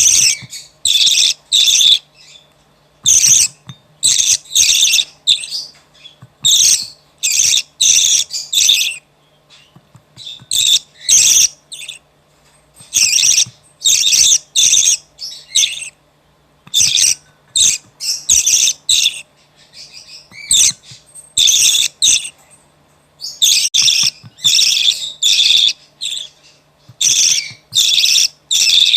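Budgerigar chick giving raspy, high-pitched begging calls in quick clusters of short cries, the food-begging of a chick being hand-fed.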